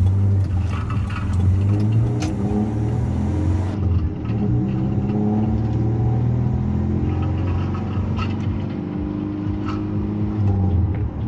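1990 Mazda B2200 pickup's four-cylinder engine running as the truck drives, heard from inside the cab; its pitch rises and falls as it speeds up and eases off.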